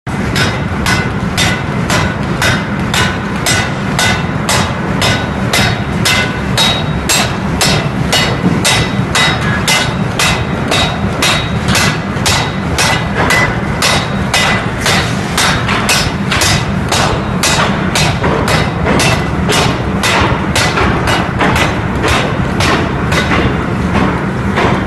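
Pneumatic forging hammer striking a red-hot workpiece in a steady run of blows, about two a second, over a continuous low machine rumble.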